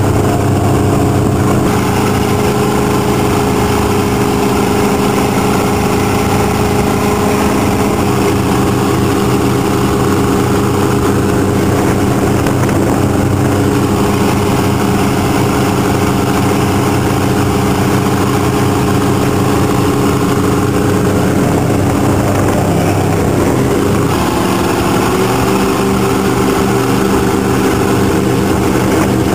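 Go-fast powerboat engines running steadily at speed, with water rushing and wind. Near the end the engine note steps up slightly.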